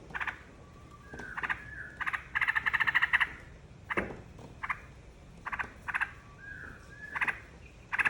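Yellow-vented bulbul (trucukan) calling: short bursts of rapid chattering notes about once a second, with a couple of brief whistled slurs. The longest and loudest burst of chatter comes about two and a half seconds in.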